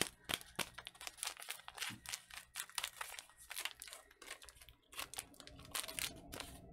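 Crinkling and rustling of a plastic MRE drink-powder pouch as it is handled and torn open, a fast irregular run of small crackles.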